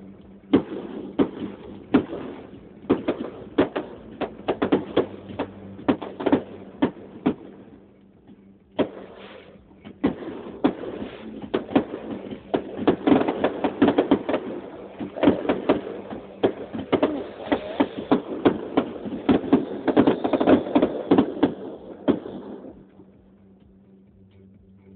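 Fireworks going off: a rapid, irregular volley of bangs and crackles, densest in the second half, that stops abruptly a few seconds before the end.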